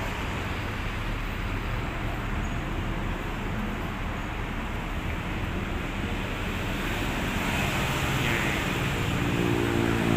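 Steady road-traffic noise from cars on the road below: a continuous even rush with no distinct events. It swells a little near the end, joined by a low steady hum.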